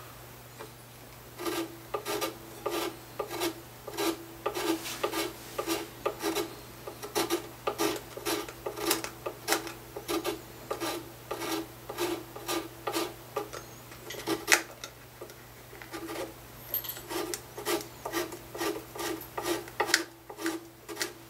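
Small file rasping back and forth in the E-string slot of a guitar nut, about two strokes a second, with a short pause about two-thirds of the way through. The slot was cut too low, which makes the E string buzz against the first fret.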